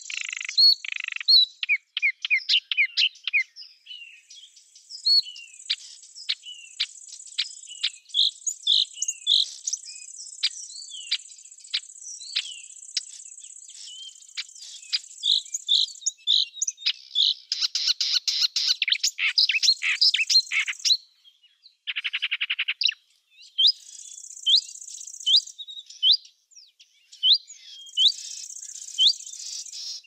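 Small songbirds chirping and singing in quick short notes over a steady high insect trill, typical of crickets, with a dense fast rattling trill for a few seconds past the middle.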